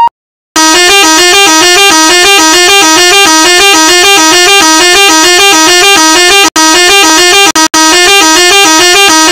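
Electronic siren from a phone siren-simulator app, a fast two-tone sound flipping between two pitches several times a second. It starts about half a second in and cuts out twice very briefly near the end.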